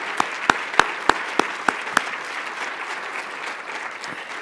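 Audience applauding. One person's sharper, louder claps stand out at about three a second over the first two seconds, then the applause thins out.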